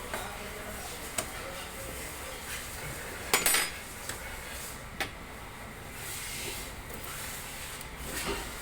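Metal clinks and light rubbing as starter-motor parts are handled. There is a short cluster of clinks, the loudest, about three and a half seconds in, and single clicks near the start, about five seconds in and near the end.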